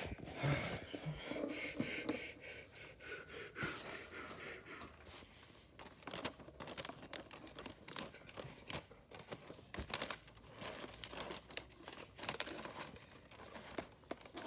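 Wrapping paper being handled, rustling and crinkling with irregular crackles.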